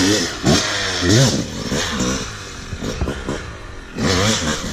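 Dirt bike engine revved in several short throttle blips, the pitch rising and falling with each one; the strongest comes about a second in and another near the end.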